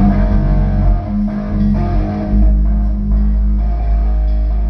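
Electric guitar played through an amplifier for a sound check, notes ringing out, with bass guitar under it. A deep bass note comes in about halfway and holds.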